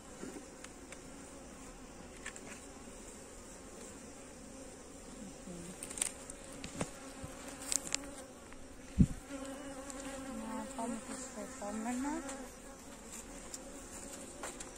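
Honeybees buzzing steadily over an open nucleus hive, with a few sharp knocks, the loudest about nine seconds in. Between about ten and twelve seconds in, the buzz swells and wavers in pitch.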